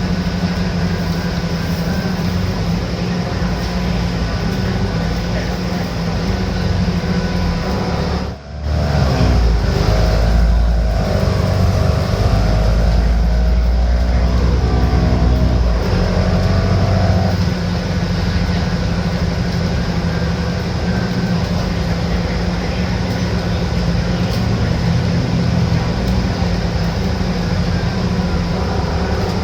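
Cummins diesel engine and drivetrain of an Alexander Dennis Enviro500 MMC double-decker bus running under way, heard on board. A little over eight seconds in the sound dips for a moment, then a whine rises in pitch for several seconds as the bus pulls, before it settles back to a steady run.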